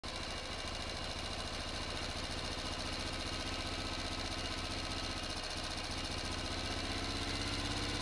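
Engine of a pontoon water taxi running steadily as the boat cruises along: an even, low-pitched hum that does not rise or fall.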